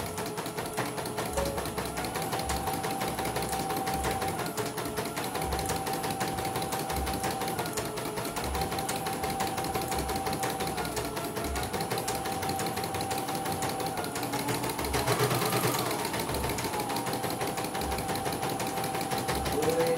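CNY computerized embroidery machine stitching in a test run: a fast, even needle-and-hook rattle over a motor whine that steps up and down in pitch every second or two, rising higher for a moment about fifteen seconds in. With a new bobbin case and belt fitted, it runs smoothly.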